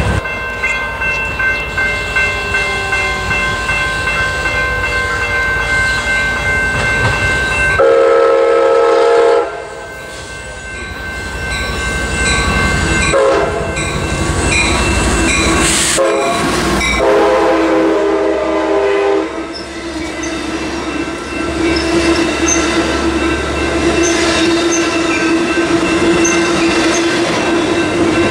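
Amtrak California passenger train approaching and passing: its locomotive horn sounds several blasts, the loudest about eight seconds in, followed by shorter ones. In the second half the locomotive's diesel engine and the cars clattering over the rail joints go by.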